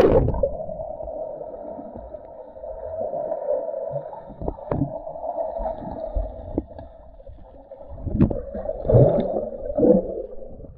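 Muffled river water gurgling and sloshing, with scattered knocks and splashes. The splashing grows louder about eight to ten seconds in.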